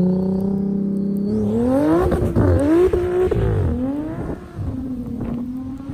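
Turbocharged Audi S5 engine, converted to a single 6466 turbo, held at steady revs. About a second in it revs up hard as the car pulls away on snow. The engine note climbs and drops several times, then settles to a steadier, quieter drone as the car moves off into the distance.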